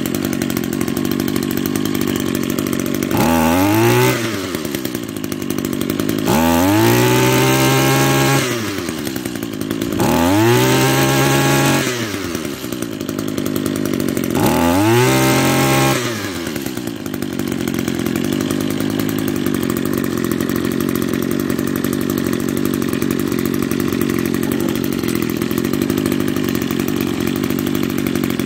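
Echo SRM-210 string trimmer's small two-stroke engine, running with its air filter off. It idles, is revved up four times for a second or two each and drops back to idle each time, then idles steadily.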